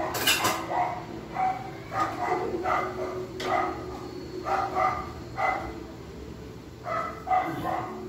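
A dog barking repeatedly in short barks, more than a dozen in all, with a pause of over a second shortly before the end.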